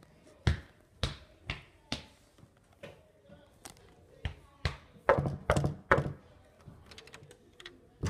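Quick footsteps on a hard hallway floor, about two steps a second, then a cluster of louder knocks and thuds about five seconds in.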